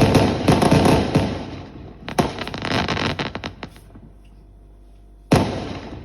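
Fireworks going off in quick succession: rapid bangs and crackling, a fresh burst about two seconds in, a short lull, then a single sharp bang near the end.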